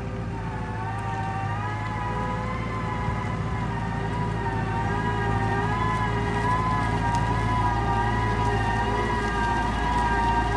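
CAT M315D wheeled excavator driving, its diesel engine running under a steady high whine that wavers slightly in pitch. The sound grows louder as the machine comes closer.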